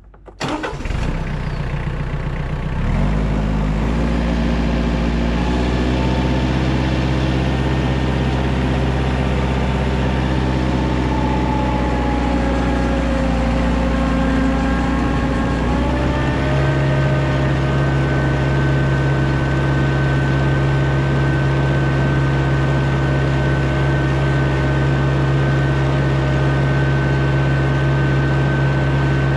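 Diesel engine of a 35 hp TYM loader tractor running, revs rising about three seconds in, as it drives with its hydrostatic transmission in high range. A whine in the drive glides down and back up, then holds steady and higher about halfway through.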